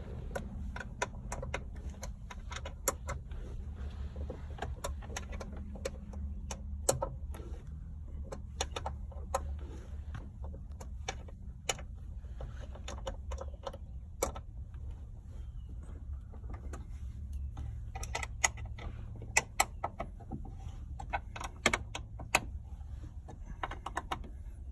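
Ratchet and socket clicking in short irregular runs while the grab-handle bracket bolts are run in and tightened, with metal tool taps, over a steady low hum.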